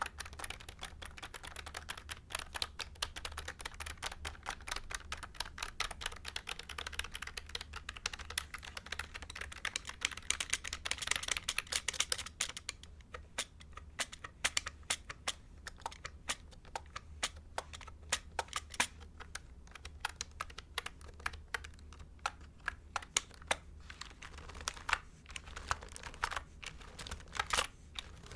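Typing on a mechanical keyboard: a fast, dense clatter of keystrokes for about the first twelve seconds, then slower, separate key clicks.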